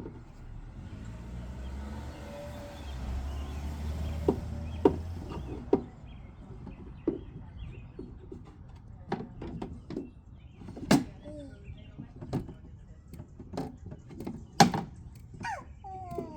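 Irregular light clicks and knocks of small toy kitchen pieces being pecked at, moved and dropped by a pet bird, with a low rumble in the first few seconds and a bird call starting right at the end.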